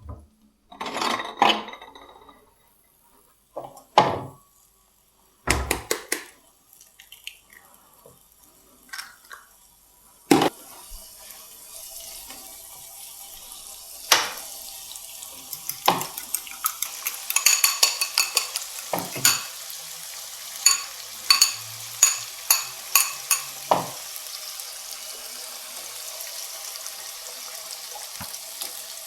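Scattered knocks and clatter of kitchen handling, then from about ten seconds in a steady sizzle of a sausage-and-lavash wrap frying in a pan, with many sharp crackles and pops.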